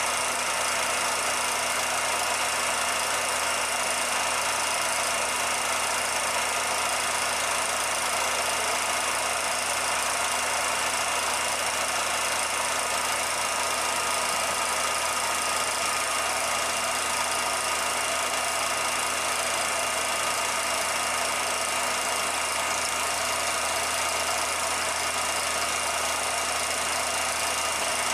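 16mm film projector running: a steady mechanical whir with hiss and a few constant hum tones, unchanging throughout.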